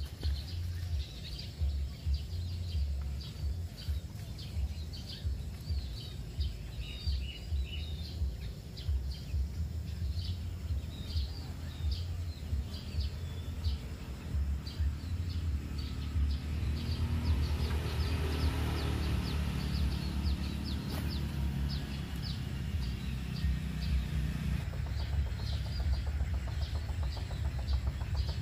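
Wind rumbling on the microphone, with small birds chirping over and over in the background; the wind noise swells for several seconds past the middle.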